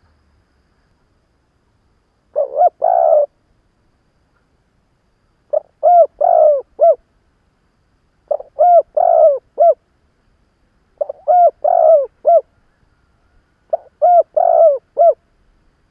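Spotted dove cooing, a seasoned decoy bird's call: five phrases about three seconds apart, the first of two notes and the rest of about four quick notes each, with pauses between.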